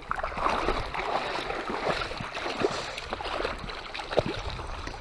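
Shallow creek water sloshing and splashing irregularly as someone wades toward the bank, with a sharper splash about four seconds in.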